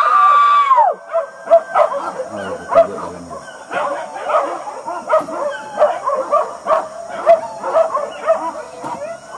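Pack of hunting dogs baying and yelping, giving voice during a wild boar hunt. It opens with one long howl that drops off after about a second, followed by rapid, overlapping yelps.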